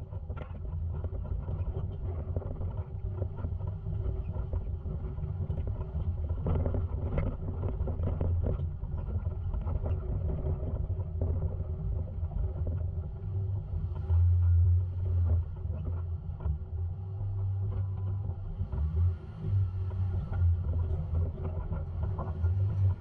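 2011 Jeep Wrangler Rubicon's 3.8-litre V6 running under low-speed off-road driving, a steady low rumble that grows louder in surges about two-thirds of the way in and near the end, with scattered knocks and rattles early on.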